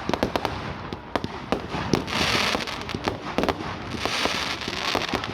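Fireworks going off: a rapid run of sharp pops and crackles, with two spells of loud hissing crackle about two and four seconds in.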